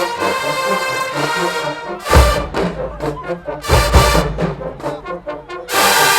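Marching band brass section playing, with two heavy percussion hits about two and four seconds in, and the full band coming in louder near the end.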